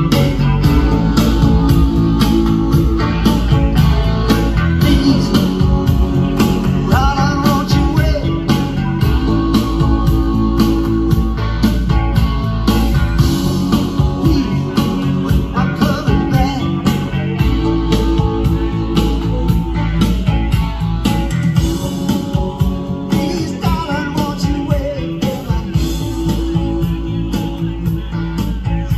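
Guitar-driven rock music with a steady drum beat, easing down slightly near the end.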